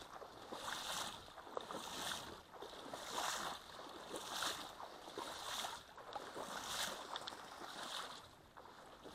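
Water sloshing and swishing in a steady rhythm, about one stroke every second, from moving through shallow floodwater.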